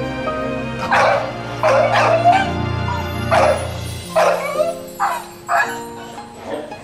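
A pit bull crying over being left behind by its owner: about eight high yelping whines in quick succession, some bending in pitch, over sad background music.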